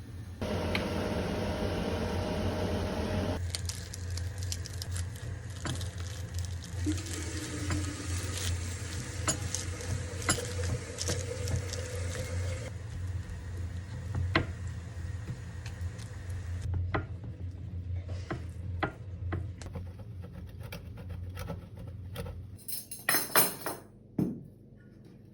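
Kitchen cooking sounds: utensils clinking and scraping against pans and dishes, over a steady low hum. There are a few seconds of hissing near the start and a cluster of louder clinks near the end.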